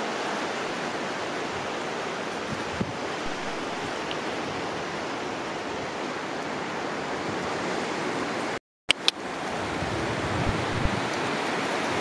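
Steady rushing noise of wind and sea surf on the beach. About three-quarters of the way through the sound drops out completely for a moment, then resumes with a couple of small clicks.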